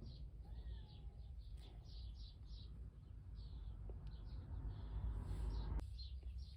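A small bird chirping faintly and repeatedly, about two or three high chirps a second, over a low steady hum.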